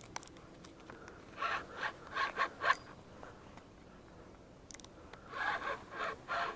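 Short rubbing and scraping sounds close by, in two clusters: four or five quick scrapes from about a second and a half in, then another group near the end.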